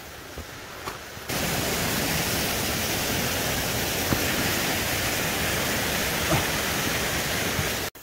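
Steady rush of flowing stream water, an even wash of noise that comes in abruptly about a second in and cuts off sharply just before the end.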